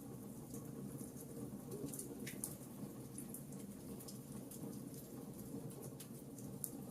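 Campfire crackling: irregular sharp snaps and pops, several a second, over a steady low sound of burning wood. A louder pop comes about two and a half seconds in and another near the end.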